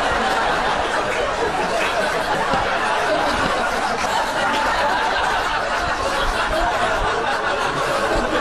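Many people laughing at once, a dense, steady wash of laughter that does not let up.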